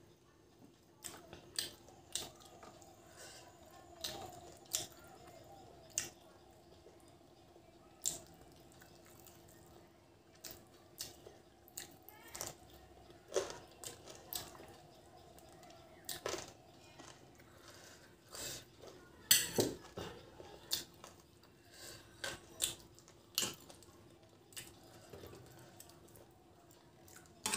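Close-up mouth sounds of eating chicken curry by hand: chewing and wet lip and finger smacks, short and irregular, a few of them loud. A faint steady hum lies underneath.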